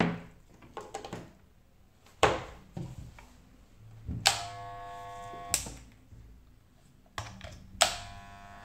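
Ipone IP-1020 corded electric pet clipper: a few sharp clicks and knocks of handling and switching, then the clipper switched on and running with a steady hum for about a second and a half before it is switched off, and switched on again near the end, running quietly.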